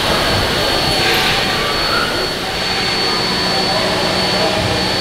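Victorian Railways steam locomotive hissing steadily with escaping steam, with a thin, steady high tone over the hiss.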